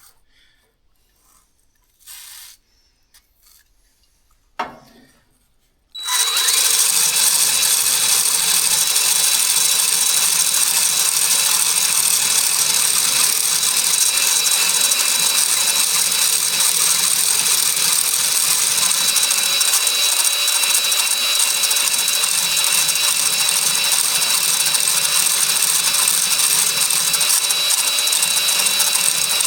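A drill driving a cylinder hone in a motorcycle cylinder bore, the final honing to size and finish after boring. After a few light clicks it starts suddenly about six seconds in and runs steadily, rasping with a high whine, then stops near the end.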